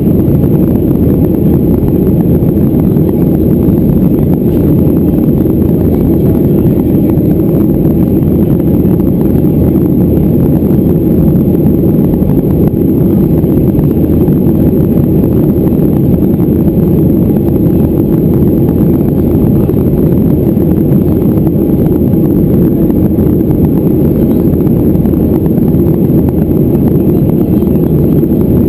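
Steady, loud cabin noise of a Boeing 737-400 in the climb: the even rush of its CFM56-3 engines and airflow over the fuselage, deep and unchanging.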